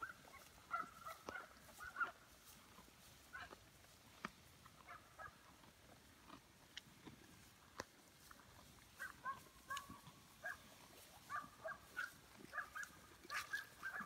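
Cattle eating loose hay close by: faint, irregular tearing and crunching of hay as they chew, with clusters of short high calls in the second half.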